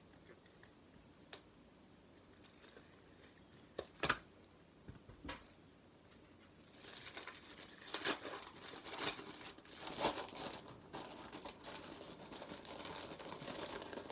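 Protective packaging being crinkled and pulled off a boxed model bus: a few light knocks at first, then continuous crinkling and rustling with sharper peaks from about halfway in.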